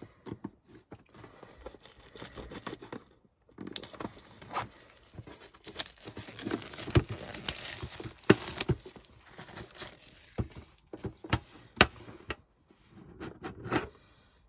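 Plastic shrink-wrap on a Pokémon card tin being torn and crumpled, a continuous crackle broken by sharp clicks and knocks as the tin is handled.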